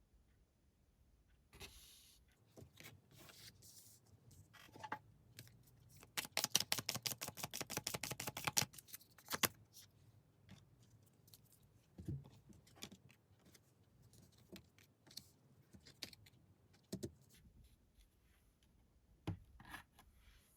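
Tarot cards being handled and shuffled: scattered soft clicks and scrapes of cards, with a quick run of card flicks, about ten a second, for a few seconds in the middle.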